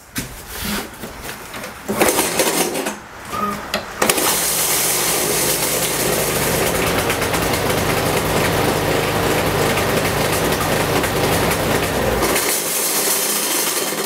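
Briggs & Stratton 625EX single-cylinder mower engine pulled over a few times on its recoil starter, catching about four seconds in. It runs steadily and then shuts off about twelve seconds in. This is the odd-sounding start the owner complained of, which the mechanic thinks comes from a blade loose on a bent blade adapter.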